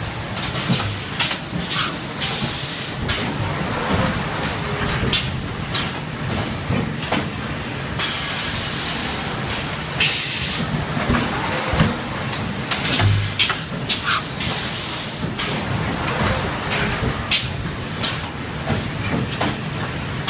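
Automatic high-frequency PVC welding machine running: a steady mechanical din with many sharp clacks and several short bursts of hissing air.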